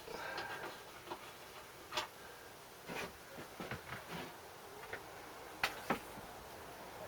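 A few scattered light clicks and knocks, the loudest two close together near the end, with no engine running.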